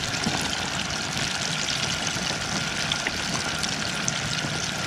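White perch deep-frying in hot grease in a small basket fryer: a steady frying hiss, with a faint steady tone underneath.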